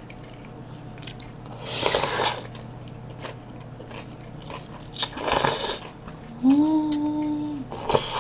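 Cold naengmyeon noodles slurped through the lips in two loud noisy bursts about two and five seconds in, with soft chewing and mouth clicks between. Near the end comes a hummed 'mmm' held for over a second.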